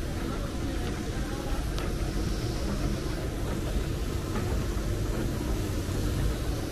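Steady low rumble and hiss of a mall's background noise heard from a moving escalator, with a few faint ticks.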